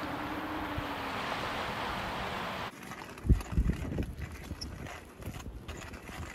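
Wind on the microphone: a steady rushing hiss that cuts off abruptly about two and a half seconds in, followed by a few low buffeting thumps and a quieter, uneven rumble.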